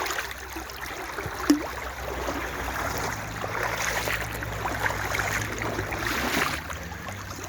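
Shallow brook water running and sloshing around boots as someone wades along the streambed, with one sharp knock about a second and a half in. A low steady hum comes in about three seconds in and fades near the end.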